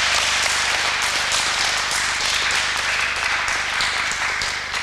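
Large audience applauding, a dense, steady clapping that thins slightly near the end.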